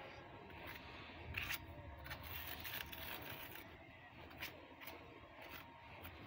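A small spatula scraping and dabbing thick texture paint onto a rough concrete block wall, in faint, irregular short scrapes about once a second.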